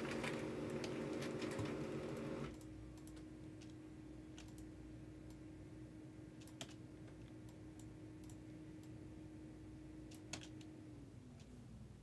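Quiet computer keyboard typing and scattered clicks over a low hum. The hum thins to a single steady tone after a couple of seconds and slides lower in pitch near the end.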